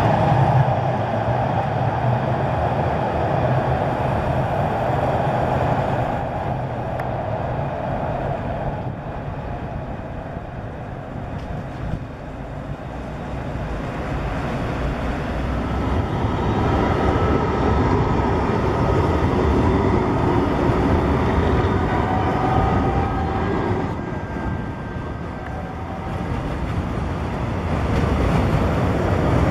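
Electric low-floor trams running on street track: a tram passing close by, then trams approaching, with the rumble of wheels on rail and a faint steady whine in the second half.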